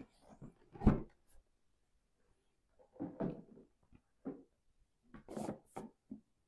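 Cardboard board-game box being opened and handled on a table: one sharp knock about a second in, then a few shorter knocks and scuffs of cardboard as the lid is set aside and the contents are handled.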